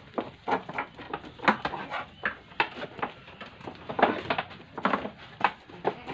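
Goat hooves and sandaled feet knocking and scuffing on the planks of a wooden platform as the goat is led into position, an irregular run of short knocks.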